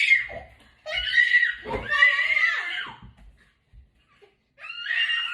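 A child's high-pitched shrieks or squeals: one short cry about a second in, a longer one just after, then another near the end.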